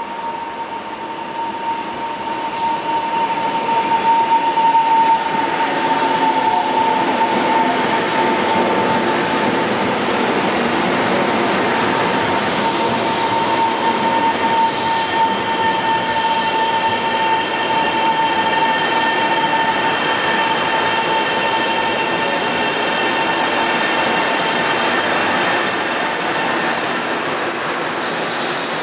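Taiwan Railways train running past with a steady high-pitched wheel squeal over the rumble and clatter of its wheels. It grows louder over the first four seconds, then holds steady, and higher squealing tones join in partway through.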